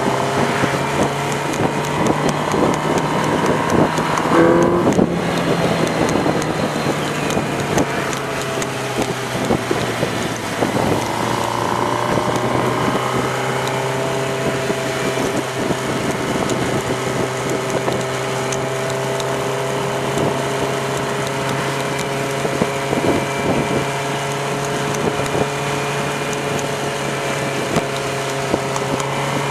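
Inline-four sport bike engine running at cruising speed, with wind rushing over the microphone. The engine note rises and breaks about five seconds in and shifts again about eleven seconds in, then holds steady.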